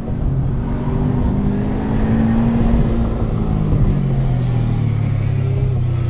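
2006 Subaru WRX STI's turbocharged 2.5-litre flat-four heard from inside the cabin, revving and changing pitch as it is driven hard through an autocross course. About four seconds in the note drops and settles to a steady, lower pitch.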